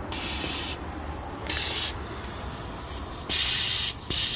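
Compressed air hissing out of a semi truck's air-brake system in repeated bursts, each starting and stopping abruptly, the last and loudest near the end.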